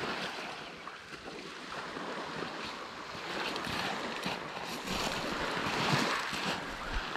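Small waves washing onto a gravel beach, with wind buffeting the microphone; the wash grows louder in the second half.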